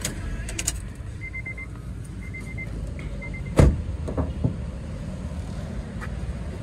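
A cold Honda Mobilio engine idling steadily. Faint quick beeps come in three short runs, and about halfway through there is one loud thump, like a car door shutting, with two lighter knocks after it.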